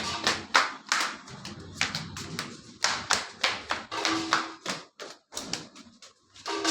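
A quick, irregular run of sharp taps, several a second, thinning out with short gaps near the end.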